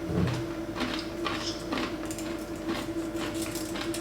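Someone chewing a nougat with nuts and caramel: irregular small crunching clicks over a steady low hum.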